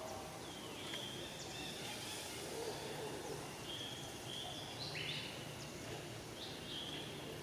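Birds calling outdoors: repeated short, high whistled notes and quick downward-sweeping calls over a steady background hum.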